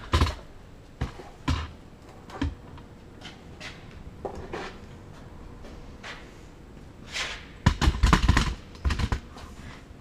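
Handling noise of a camera being unmounted and carried: scattered knocks and bumps, with a few in the first two and a half seconds and a louder cluster of thumps about three-quarters of the way through.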